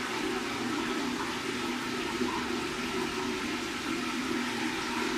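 Water running in a steady rush.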